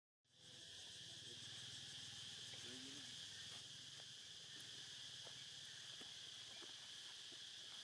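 Faint, steady high drone of insects chirring in the surrounding woods, cutting in after a split-second gap at the start.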